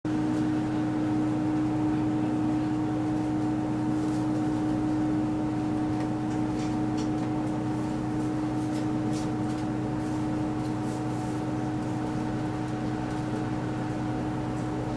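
Steady drone of a Sanriku Railway diesel railcar heard from inside the car: a constant engine hum at an unchanging pitch, with a few faint ticks and clicks.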